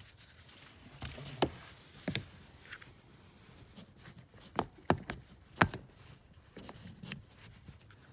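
Sharp plastic-and-metal clicks and knocks of a car seat's ISOFIX strap connector being pushed and worked onto the car's ISOFIX anchor bar, about six irregular clicks with the loudest about five and a half seconds in, over faint handling rustle.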